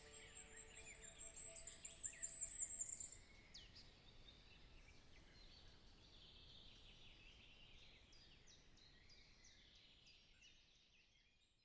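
Songbirds singing, a loud high trill for the first three seconds over many short chirps, then fainter song that fades out near the end. Soft music notes die away at the start.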